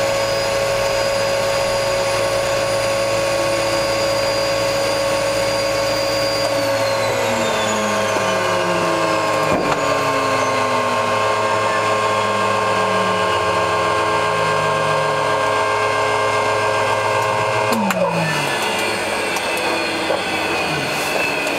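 De Havilland Canada Turbo Otter's turboprop engine running with a steady turbine whine, then spooling down: from about a third of the way in the whine falls steadily in pitch for some ten seconds as the engine winds down, and near the end the high whine stops abruptly, leaving lower sliding tones as the propeller runs down.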